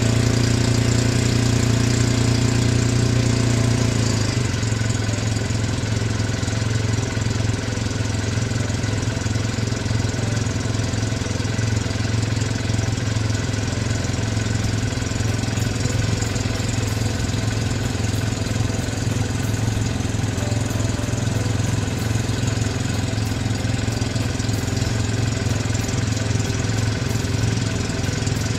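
Snowmobile engines running steadily at low throttle, a low even hum. It is a little louder for the first four seconds, then settles to a slightly quieter steady drone.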